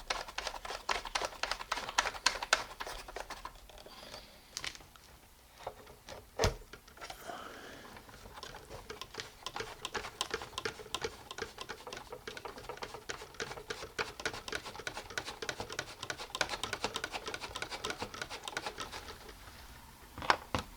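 Rapid runs of small plastic clicks and rattles from toy farm vehicles being moved by hand. The clicking thins out for a few seconds, with a single sharper knock about six and a half seconds in.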